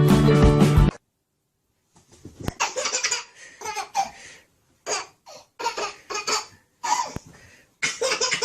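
Rock music with guitar that cuts off about a second in, then after a short silence, repeated bursts of laughter.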